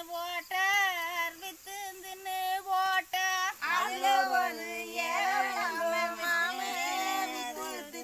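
Women singing a Tamil kummi folk song (kummi paattu), unaccompanied. One voice carries a line, and about halfway through lower voices come in together, answering in chorus.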